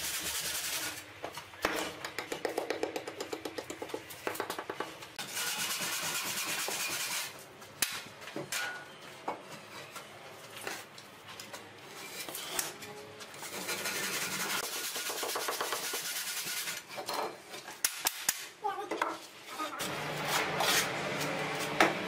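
Hand masonry work with lightweight blocks: stretches of scraping and rubbing as blocks and adhesive are worked into place, a quick run of short strokes, and scattered knocks as blocks are set.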